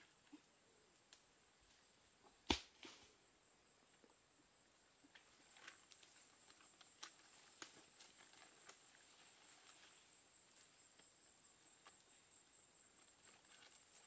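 A single sharp thud about two and a half seconds in. From about five seconds, a high, fast-pulsing insect trill sets in, with scattered faint clicks and rustles.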